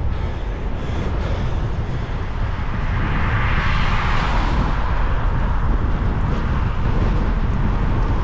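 Wind buffeting a bike-mounted action camera's microphone while riding on a wet road, a steady low rumble. About three to five seconds in, a car passes close by on the wet tarmac, its tyre hiss swelling and fading.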